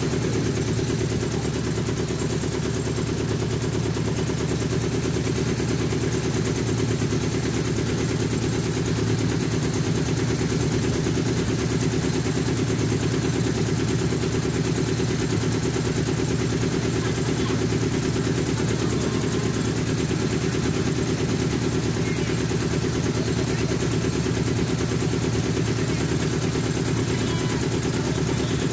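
Boat engine running steadily with a fast, even chugging.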